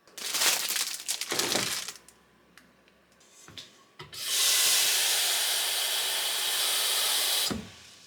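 Water running from a tap in two spells: a short uneven gush at the start, then a steady stream for about three seconds that cuts off suddenly, with a few small clicks in between.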